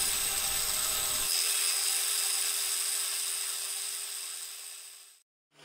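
2 mm slitting saw on a milling machine cutting through brass stock: a steady whirring cut with high-pitched ringing tones, fading away near the end.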